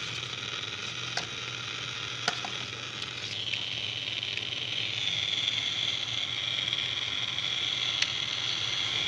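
FM radio static hissing from the Walkent mirror alarm clock's speaker in FM mode, with no station tuned. It grows louder in steps after about three seconds as the data cable that lets it receive FM is plugged in. A few light clicks from the cable and plastic case being handled.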